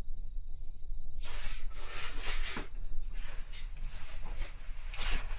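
Fabric and clothing rustling as garments are handled and put on, a rough scuffing noise that starts about a second in, over a steady low rumble.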